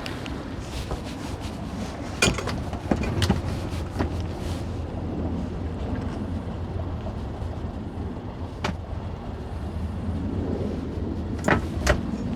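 Boat engine running steadily, with several sharp knocks scattered through, two of them close together near the end.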